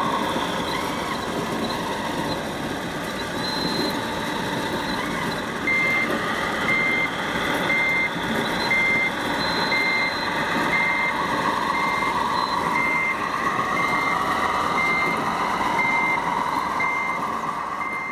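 Radio-controlled scale construction machine running, its motor and engine noise steady. From about six seconds in, its reversing beeper sounds about once a second.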